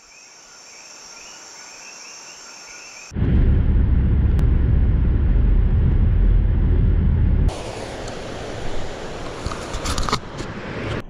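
Car cabin noise at highway speed: a loud, steady low rumble of engine and road that starts suddenly about three seconds in and stops abruptly after about four seconds. Before it, faint high-pitched repeated calls; after it, a quieter outdoor hiss with a few knocks and rustles.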